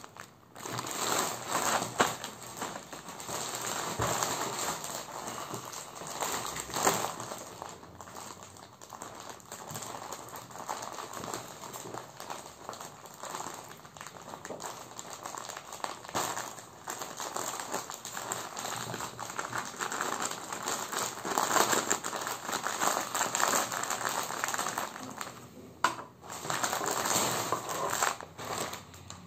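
Plastic courier mailer bag crinkling and rustling as hands work it open and pull out a plastic-wrapped bundle, with a few sharp crackles.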